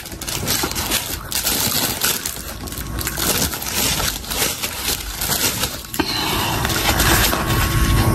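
Close-miked chewing of fried pakoda, a dense run of small crackly crunches that turns steadier about six seconds in.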